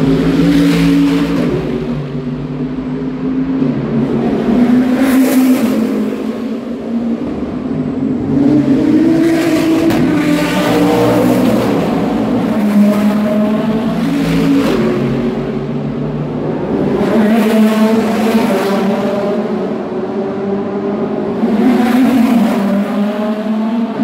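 Race cars passing one after another at racing speed, about five loud passes. The engine pitch rises in steps as the cars accelerate through the gears, and other engines run between the passes.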